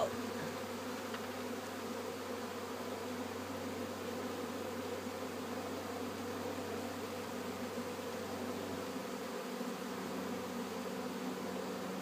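Many honey bees buzzing around an open hive, a steady hum.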